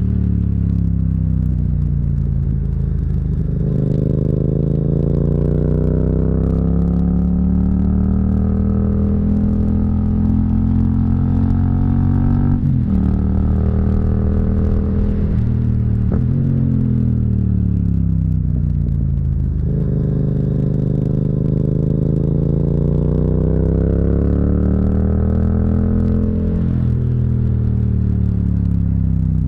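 Yamaha MT-07's parallel-twin engine under way, revs repeatedly climbing under throttle and falling away again, with several sudden drops in pitch as gears are changed.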